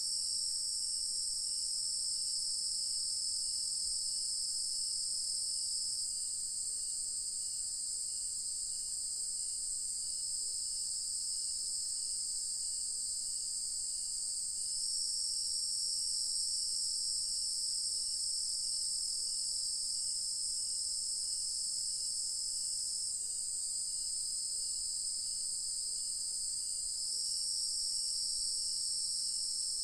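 Dusk insect chorus of crickets and cicadas: a continuous high-pitched shrill drone that swells and eases slightly every several seconds, with a fainter, lower chirp repeating about twice a second.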